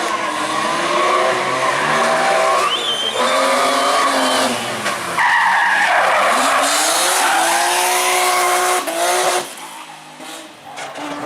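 Rally car engine revving hard, its note climbing and falling again and again with gear changes and lifts. It jumps suddenly about five seconds in, fades away about ten seconds in, and picks up again near the end.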